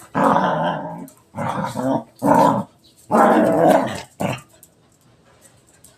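A dog growling and grumbling in five rough bursts, about half a second to a second each, stopping a little over four seconds in.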